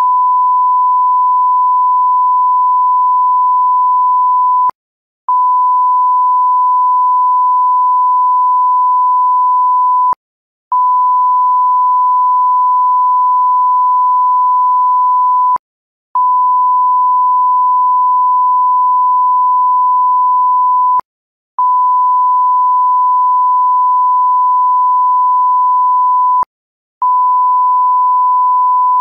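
Censorship bleep: a single steady, pure, high-pitched beep tone held for about five seconds at a time. It cuts out for about half a second roughly every five seconds, with a faint click each time it stops and starts again.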